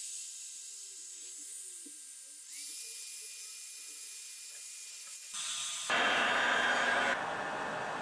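Heat gun blowing hot air: a steady airy hiss with a faint whine. It steps louder about two and a half seconds in, and again, fuller, around six seconds in.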